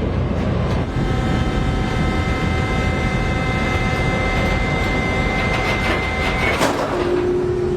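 Steady low rumble like a running vehicle, with a chord of several high steady tones held over it from about a second in until near the end, when a single lower tone takes over.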